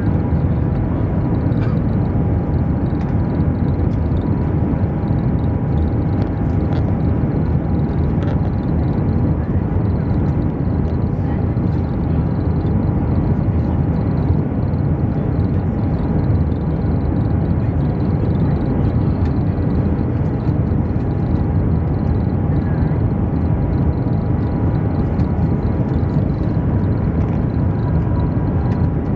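Steady cabin noise inside the Shanghai Maglev train running at about 300 km/h: a loud, even rumble with faint steady tones above it.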